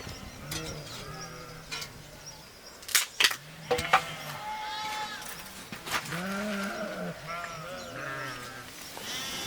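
A flock of sheep bleating, with many overlapping calls. A few sharp knocks come about three to four seconds in and are the loudest sounds.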